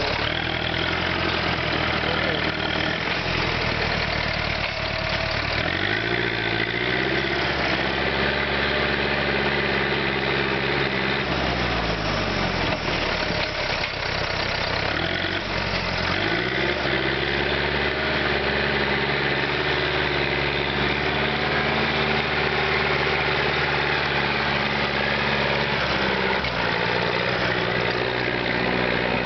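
Small tractor's engine working under load as it pushes into the soil with its front blade: it revs up several seconds in, drops back before halfway, then revs up again and holds high, easing off slightly near the end.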